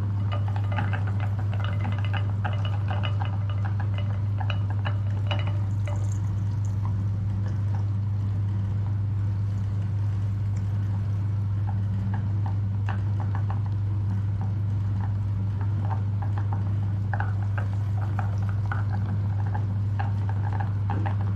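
Meat grinder running with a steady low hum while slime is forced through it, squelching and crackling in many small wet pops, busiest at the start and near the end.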